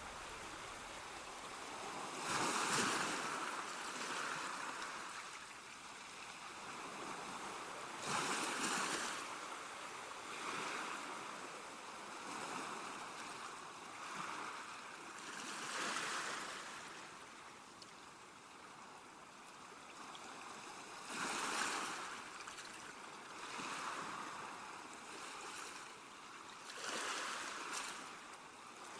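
Continuous rush of water that swells about every five to six seconds, like waves washing in.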